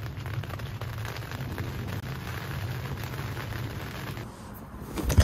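Steady rain falling on the tent's fabric, heard from inside the tent, fading about four seconds in; a single sharp knock just before the end.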